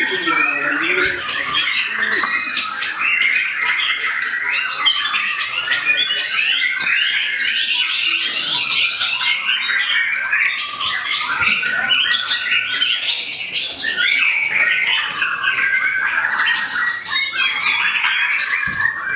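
Caged contest songbirds singing without a break: a dense, overlapping stream of chirps, trills and whistles.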